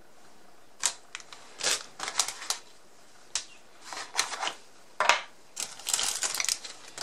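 Hands handling items in a moulded packaging tray: a string of sharp clicks, taps and short scrapes, getting denser near the end.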